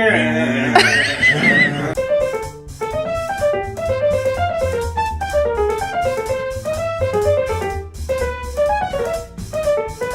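Background music: a bouncy piano or keyboard tune over a steady drum beat and bass. In the first two seconds a brief wavering high-pitched sound sits over it.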